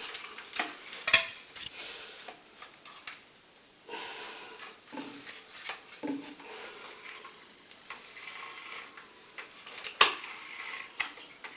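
Metallic clicks, clinks and knocks from handling a circular saw and its blade parts while working out the blade fitting and spindle lock, with a sharp knock about a second in and another near the end.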